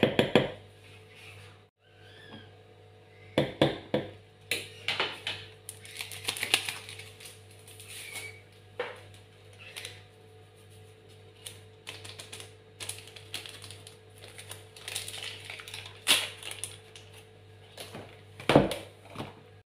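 Metal spoon knocking and scraping against a mixing bowl as flour is spooned in: irregular clicks and taps, a few louder knocks, over a steady low hum.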